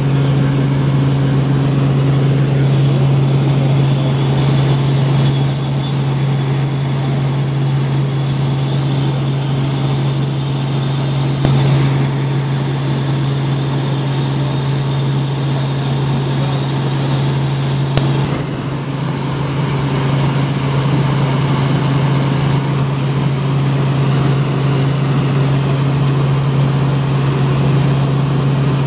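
Small helicopter in flight, heard from inside the cabin: a steady drone of rotor and engine with a strong, unchanging low hum.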